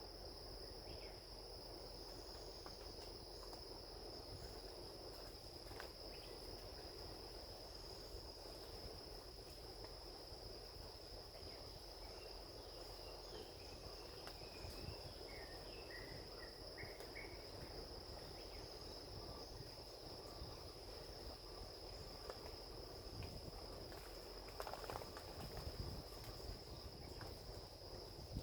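Insects, crickets by the sound, trilling in one steady, unbroken high note over a low, even background rush, with a few short high chirps around the middle.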